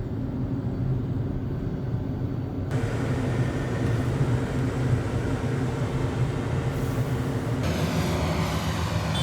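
A vehicle engine running steadily, a low drone that holds its pitch; the sound changes abruptly twice, about two and a half seconds in and again near the end, as at cuts between recordings.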